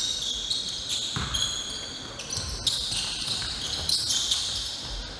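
Basketball play on a gym court: repeated high-pitched squeaks of sneakers on the floor, with the dull thuds of the ball being dribbled.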